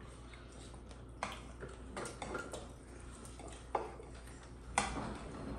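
Scattered light clicks and knocks of tableware, utensils against plates or bowls during a meal, about five separate strikes, the loudest near the end.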